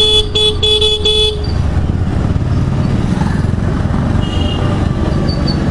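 A vehicle horn honking three short times in quick succession in the first second and a half, then a steady rumble of wind and traffic, with a faint horn again about four seconds in.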